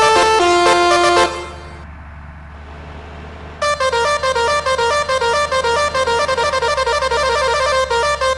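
Multi-tone musical 'telolet' bus air horn playing a stepping run of notes that stops about a second in. After a couple of seconds with only a low hum, it starts again with a fast, repeating pattern of short alternating notes.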